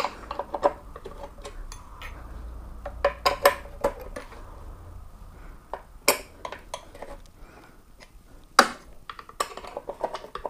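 Hex key and metal headlight-mount hardware on a Harley-Davidson Sportster clinking and tapping while the mount bolts are loosened to lower the headlight. The clinks come irregularly, with the loudest about six seconds in and again near nine seconds in.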